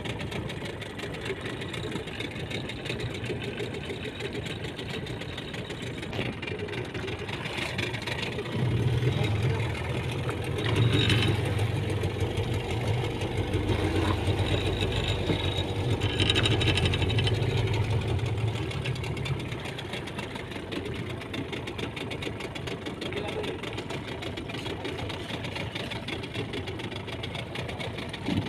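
Small fishing boat's engine running steadily, the hum growing louder for about ten seconds in the middle and then easing back.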